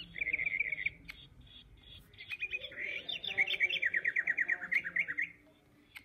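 Electronic toy bird chirping: a short run of high chirps in the first second, then a longer series of quick repeated chirps from about two seconds in that stops shortly before the end.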